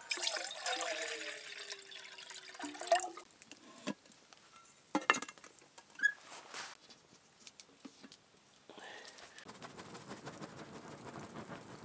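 Water poured from a bottle into a metal camp pot for about three seconds, followed by a few sharp metal clinks as the pot is handled and hung. Near the end, a steady crackling hiss from the campfire as it is fanned.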